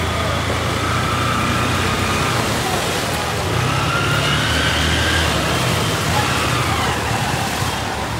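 A steady low engine hum of street traffic, with faint distant voices over it.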